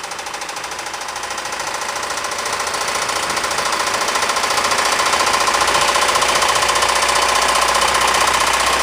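Ford 2.3L four-cylinder engine running with a loud, rapid rod knock, getting louder over the first few seconds: the sign of a badly worn, spun #2 connecting-rod bearing.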